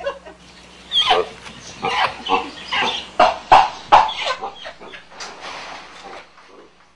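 An animal giving a rapid series of short, loud squeals and shrieks, starting about a second in and fading after about three and a half seconds.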